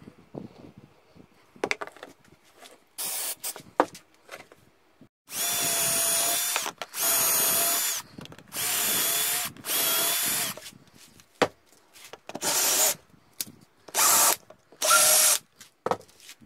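Cordless drill running in short bursts, drilling holes through a black plastic fitting into plywood. Each burst is a steady motor whine: four longer ones of about a second and a half, then several shorter ones, with small knocks of handling in between.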